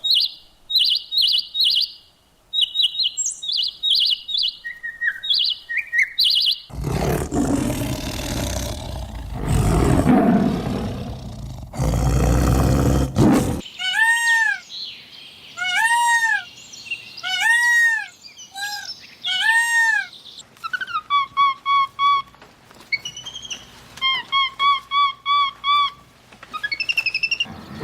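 Bird calls: rapid high-pitched chirps, then, after a stretch of loud rough noise in the middle, a series of repeated arching calls followed by short whistled notes repeated in quick runs.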